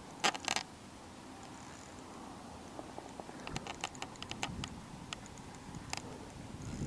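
Scattered sharp clicks and ticks: two loud clicks just after the start, a quick irregular run of ticks around the middle, and a single click near the end.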